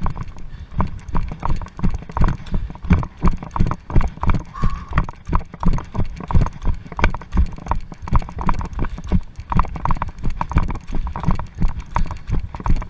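Rhythmic crunching knocks, about two to three a second, of a cyclist and bike moving along a railway track's sleepers and ballast, with a brief squeak about five seconds in.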